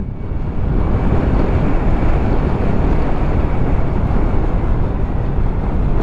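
Motorcycle riding at a steady pace, heard as a steady rush of wind on the microphone with engine and road noise underneath.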